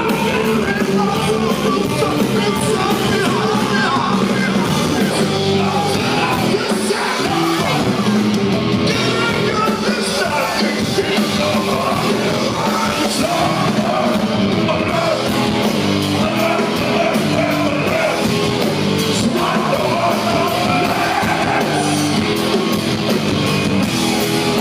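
Heavy rock band playing live and loud, with a singer yelling over the band.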